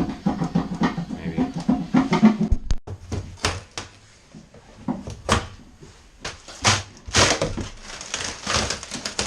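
A short bit of voice, then irregular knocks, clunks and short scraping rustles of objects being handled and moved about.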